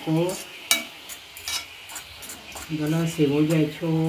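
Spoon stirring chopped onion, tomato and pepper in a hot metal pan: sharp scraping clicks against the pan over a light sizzle of the frying vegetables. A voice speaks briefly at the start and again over the last second and a half.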